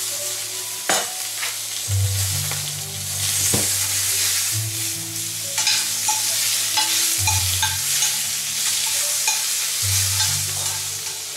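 Pieces of fish sizzling as they fry in butter in a stainless steel pan, stirred with a metal spoon that clinks against the pan a few times.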